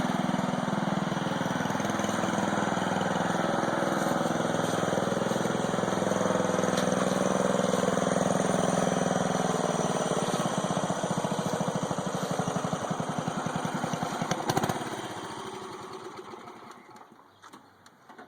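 Lawn-mower engine of a lawnmower-based tank running steadily. A knock comes about three-quarters of the way through, then the engine sound falls away and dies out.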